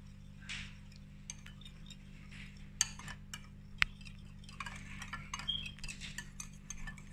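Wire balloon whisk beating egg yolks with salt and pepper in a ceramic bowl: quick, light clicks and scrapes of the wires against the bowl, getting busier about halfway through.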